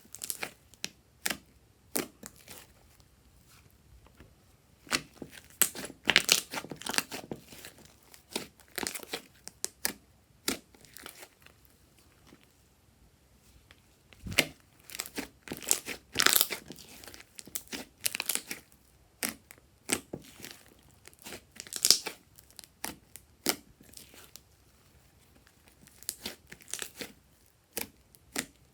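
Slime being squished and stretched by hand, giving irregular sticky crackles, pops and crinkling clicks in bunches with short pauses between them.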